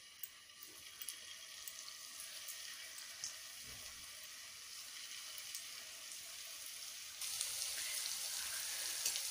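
Cornflour-coated paneer cubes frying in hot oil in a kadhai: a faint sizzling hiss with small crackles, which grows louder about seven seconds in as more cubes fill the oil.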